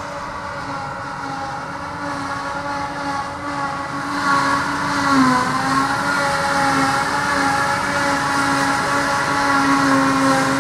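A Claas Jaguar 890 forage harvester chopping grass, with a John Deere tractor running alongside: a steady high-pitched machine drone. It grows louder about four seconds in and briefly dips in pitch about a second later.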